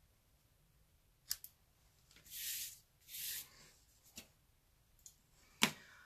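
Scissors cutting paper: two short swishing snips a little after two and three seconds in, with several light clicks and a sharper click near the end.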